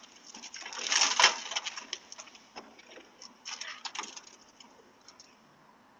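Irregular scraping, clicking and rattling of someone prying at a truck door, heard through a doorbell camera's thin-sounding microphone. The loudest scrape comes about a second in, with another cluster of clicks around three and a half to four seconds.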